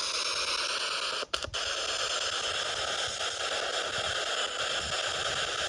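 Spirit box sweeping radio bands: a steady hiss of radio static that cuts out briefly twice about a second in.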